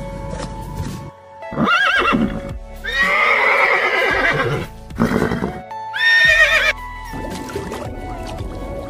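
Horses neighing and whinnying about four times, one long whinny in the middle, over steady background music.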